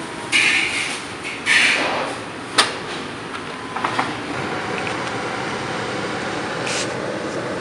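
Rustling from a foam takeout box being handled in a car, with a short sharp click about two and a half seconds in, then a steady hum of car-cabin noise.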